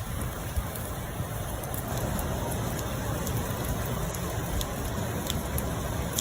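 Steady rain, an even hiss with scattered drops ticking.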